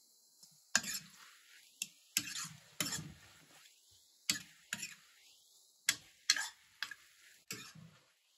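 A spoon stirring in a cooking pot: about a dozen short scrapes and knocks against the pot at uneven intervals.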